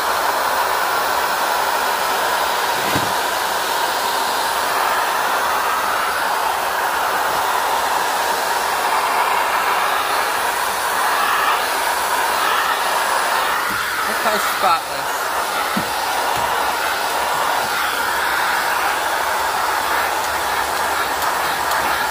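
Filter Queen Majestic vacuum running steadily as its dusting-brush attachment sucks dust off a wooden surface, with one brief knock about two-thirds of the way through.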